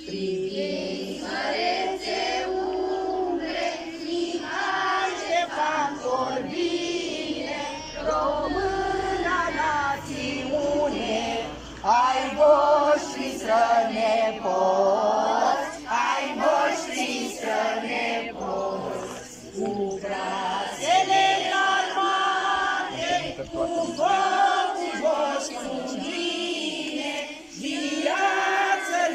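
A group of schoolchildren and adults singing together, many voices at once like a small choir.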